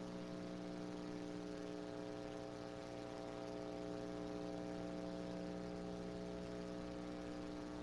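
Steady electrical hum and buzz made of several steady tones layered together, unchanging in pitch and level.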